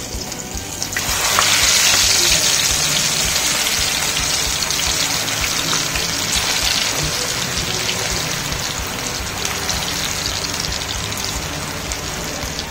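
Marinated chicken pieces deep-frying in hot oil in a pan, a loud crackling sizzle as the pieces go in. It swells about a second in and then slowly eases off.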